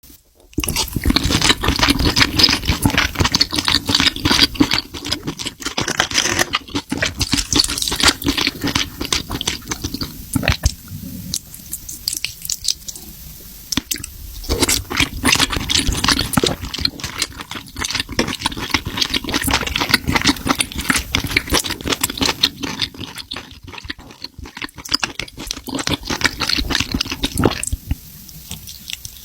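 Close-miked eating of spicy seafood: dense, irregular crackling clicks of chewing and handling food, thinning out now and then.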